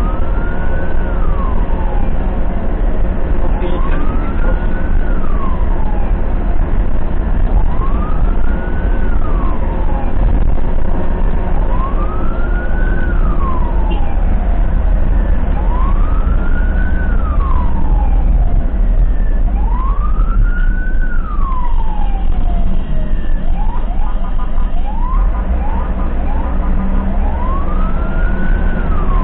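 Ambulance siren wailing, each rise and fall taking about four seconds, with a brief run of quick rising yelps breaking the pattern about three-quarters of the way through. A loud steady low rumble of the moving vehicle runs underneath.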